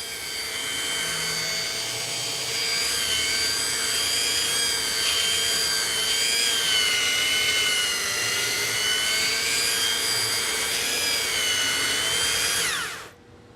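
Belt sander fitted with a 60-grit belt running steadily on a wooden board, a motor whine whose pitch wavers a little under load. Near the end it is switched off and its pitch falls quickly as it winds down.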